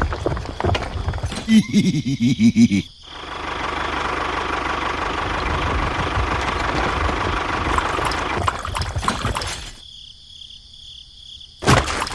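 A small engine or motor running as a steady hum, broken off by sudden cuts, with short choppy pulses in the first few seconds.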